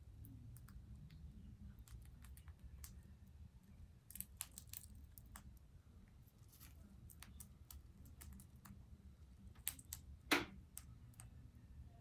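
Green rosella cracking sunflower seed husks in its beak and picking through a bucket of seeds: a scatter of small sharp clicks and crackles, with a louder crack about ten seconds in.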